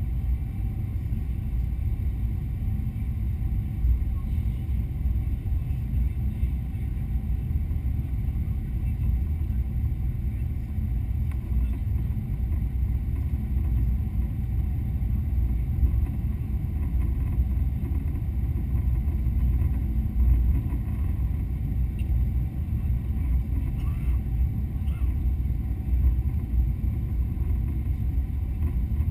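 Steady low rumble of engine and airflow noise inside the cabin of a Boeing 777-200 on approach to landing, with a few faint steady tones above it.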